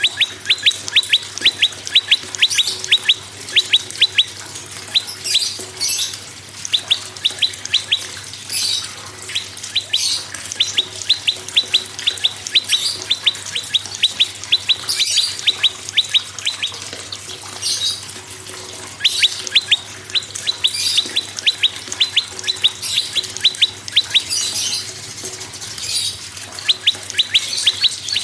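Prenjak song: rapid runs of sharp, repeated chip notes that stop and start every few seconds, with higher-pitched calls over them.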